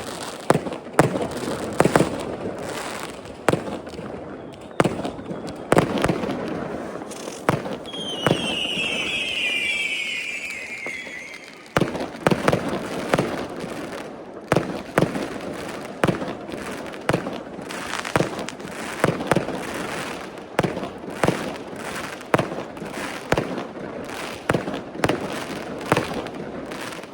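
New Year fireworks going off: a steady run of bangs and crackling salvos with echo between them. About eight seconds in, a burst of high whistling falls in pitch for some three seconds.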